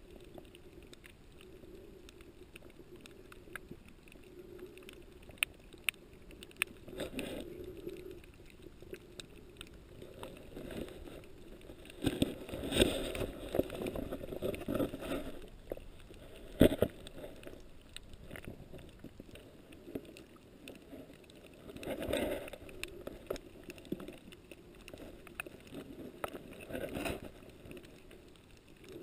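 Underwater ambience picked up by a camera swimming over a coral reef: a steady low hum with scattered sharp clicks and crackles. Several louder swells of rushing, bubbling water noise come every few seconds, the biggest a little before halfway, with a sharp knock just after it.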